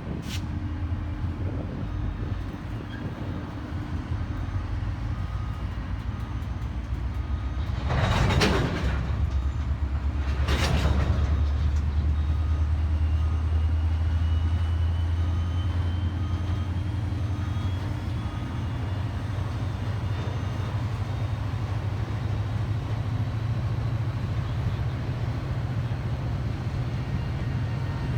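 Canadian Pacific SD40-2 diesel locomotive's EMD two-stroke engine giving a steady low rumble that grows loudest about eight seconds in and then eases off slowly. Two short loud whooshes come about eight and ten seconds in.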